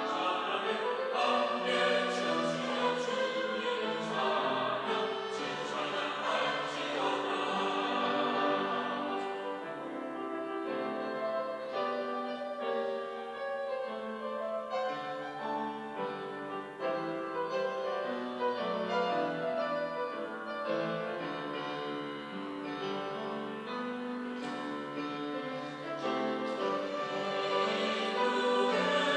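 Church choir singing a Sunday anthem in parts with held notes, quieter through the middle and swelling louder again near the end.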